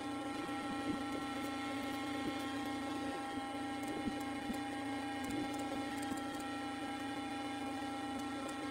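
A steady mechanical hum holding several constant pitches, with a few faint clicks.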